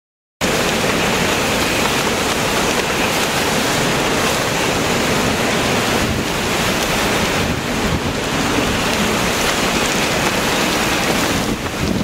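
Severe straight-line wind from a squall line's downdraft, sustained near 60 mph, with wind-driven rain, blasting the microphone as a loud, steady rush of noise that cuts in abruptly a moment in.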